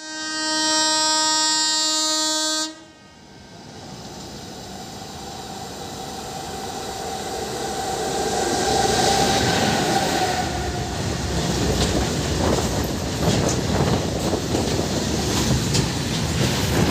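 A train horn sounds steadily for nearly three seconds and cuts off, then the rumble of an oncoming electric freight train builds as it nears on the adjacent track. Its freight wagons then rush past close by with a rapid clatter of wheels over the rail joints.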